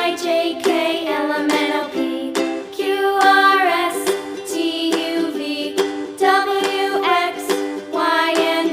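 Background music: a cheerful ukulele-led children's tune with a sung melody.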